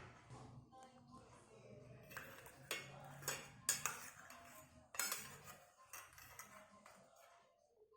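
A spoon knocking and clinking against a mixing bowl while dry rice-flour dough ingredients are stirred together, about a dozen sharp clinks from about two seconds in, over a soft rustle of the mix.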